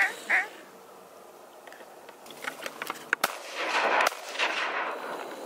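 Shotgun fired at a passing duck: two sharp shots a little under a second apart, about three seconds in.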